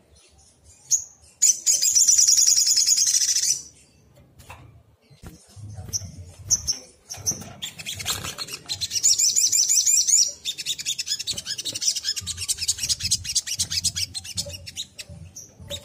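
Olive-backed sunbird singing: high, fast trills in bursts, a short one about one and a half seconds in and a longer run from about the middle to near the end, with single chirps between them.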